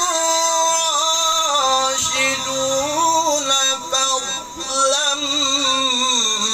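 A man's voice reciting the Quran in melodic tajweed style, drawing out long ornamented notes that glide up and down in pitch, with a brief breath-like dip about four and a half seconds in.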